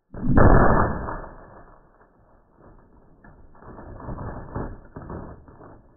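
A 458 SOCOM rifle shot and its bullet striking a ballistic gel block on a wooden board and aluminum table, slowed down many times so it comes out as a deep, drawn-out boom that fades over about two seconds. From about three seconds in, a rough, fluctuating rumble follows as the slowed impact plays out.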